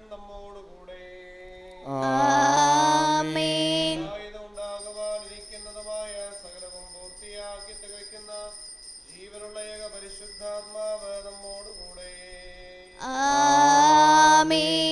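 A sung liturgical hymn with instrumental accompaniment and held low bass notes. It swells louder from about two to four seconds in and again near the end.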